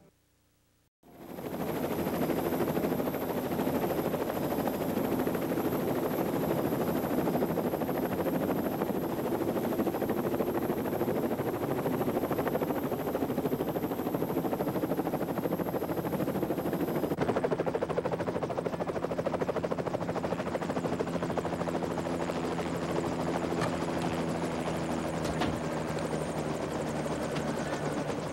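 Helicopter engine and rotor running steadily, cutting in abruptly about a second in.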